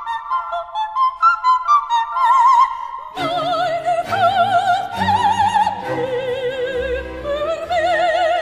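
Background classical music in operatic style. Light, short notes give way to long held notes with a wide, wavering vibrato, and a fuller, deeper accompaniment comes in about three seconds in.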